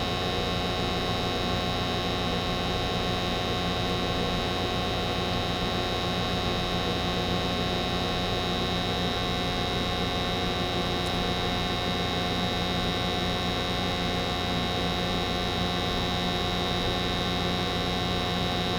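American Standard 90% gas furnace running in its warm-up stage, burners lit and circulating blower not yet started: a steady, even hum with a constant high-pitched tone over it.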